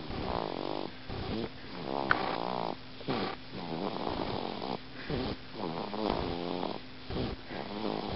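Snoring in a quick, regular rhythm, raspy on each breath in and out, roughly one in-and-out every two seconds. There is a brief sharp squeak about two seconds in.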